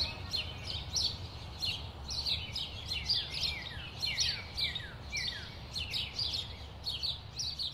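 Birds chirping: many short, high calls, each sliding downward, a few times a second, over a low steady rumble.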